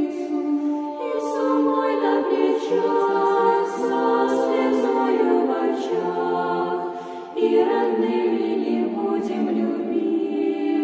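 Unaccompanied choir singing an Eastern Orthodox hymn in slow, sustained chords, with a short break about two-thirds of the way through before the voices come back in.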